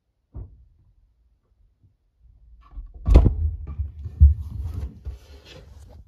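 Knocks and thuds picked up from inside a washing machine drum: one short thump, then about three seconds of knocking and rumbling with two loud thuds, about a second apart.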